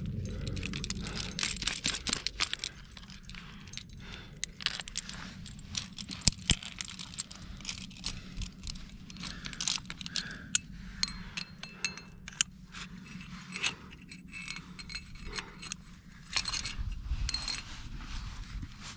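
Aluminium carabiners and quickdraws on a climbing harness rack clinking and jangling in irregular bursts as the climber moves and handles the gear, with a low rumble at the start and again near the end.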